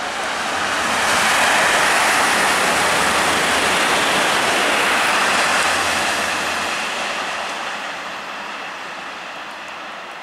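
Renfe AVE high-speed train passing at speed: a loud rush of air and wheel-on-rail noise. It builds in the first second or so, holds for several seconds, then slowly dies away as the train recedes.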